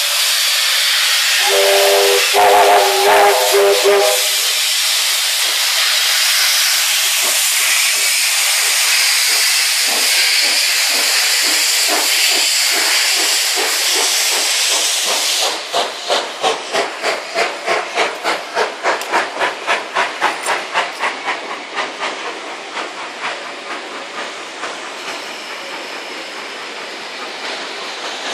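Steam locomotive pulling away: a loud steady hiss of venting steam, with its whistle sounding a chord of several tones for about two seconds near the start. About halfway through the hiss stops and rhythmic chuffing at about three beats a second sets in, fading as the train draws away.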